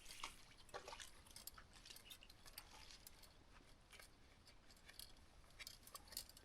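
Near silence with faint, scattered clicks and ticks.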